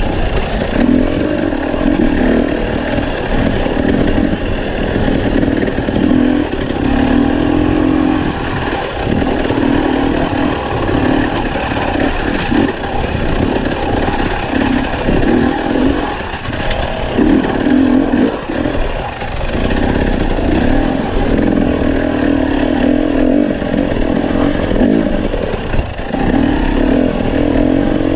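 Husqvarna TE250i two-stroke dirt bike engine, the throttle opening and closing every second or two so the pitch keeps rising and falling as the bike is ridden slowly over loose rocks.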